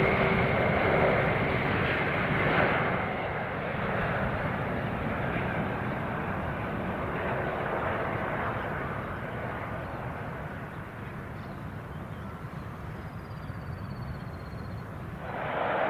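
Antonov An-124's four turbofan engines on landing approach and touchdown: a steady jet rumble with a faint whine, loudest at first and slowly fading, then growing louder again near the end.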